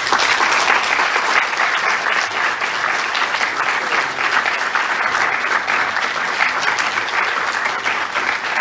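Lecture audience applauding at the close of a talk: dense, steady clapping from many people.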